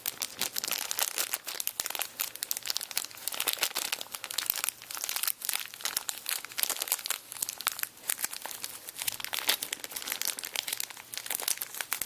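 Dense, crackly rustling and small clicks of hands handling parts, as the trigger pins are worked into an AR-15 lower receiver.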